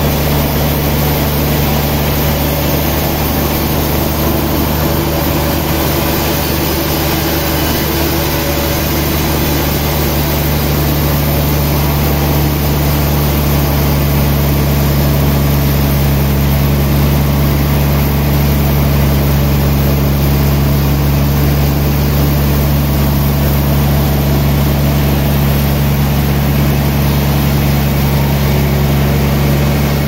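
Large band sawmill running steadily with a low hum, its blade cutting lengthwise through a very large log.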